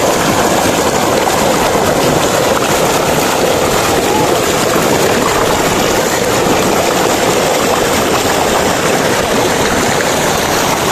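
Muddy floodwater rushing and churning in standing waves close to the microphone: a steady, loud rush of water with no let-up.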